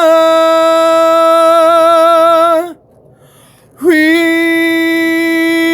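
A solo voice holds the last note of the hymn, a long sustained note with vibrato. After a short breath about three seconds in, it takes up another long, steadier note on the same pitch.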